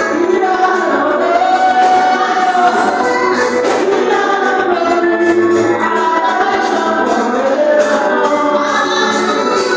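Gospel singing by many voices together in chorus, loud and steady.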